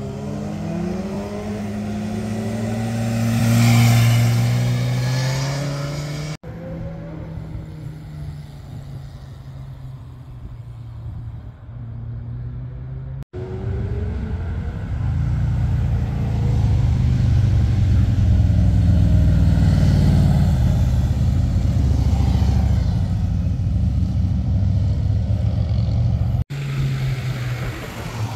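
Motorcycles passing on a winding mountain road, in several short cuts. First a single motorcycle comes through a bend and accelerates past, its engine pitch rising to a loud peak about four seconds in. Later a group of touring motorcycles goes by with a long, deep engine rumble, and near the end a Suzuki GSX-R sport bike approaches through the bend.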